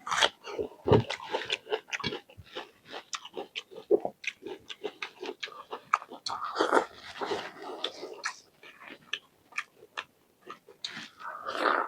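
Close-miked eating sounds: chewing a curry meal with rapid wet mouth clicks and smacks, thickening into louder, messier bouts a little past the middle and again near the end.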